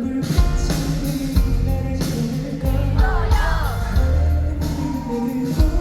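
A band playing a pop-rock song's intro, with a steady drum beat and bass, and a short gliding melodic line about three seconds in.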